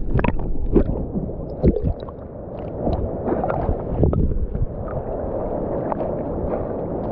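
Water sloshing and gurgling around a camera that dips in and out of the surface, with many small irregular splashes from a swimmer kicking and stroking.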